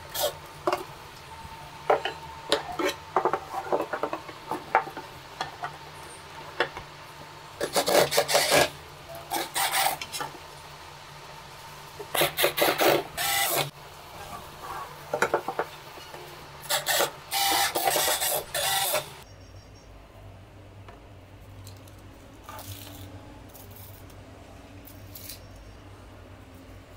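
Cordless drill driving screws into laminated particleboard in repeated short bursts. After about 19 seconds it stops, leaving only light knocks of panels being handled.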